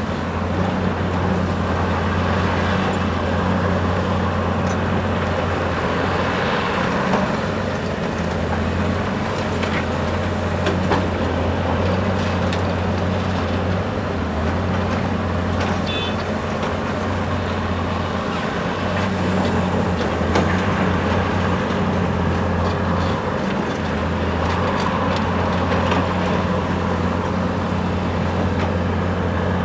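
Large Hyundai R520LC-9A crawler excavator's diesel engine running steadily under working load, its level shifting every few seconds, with a few scattered knocks.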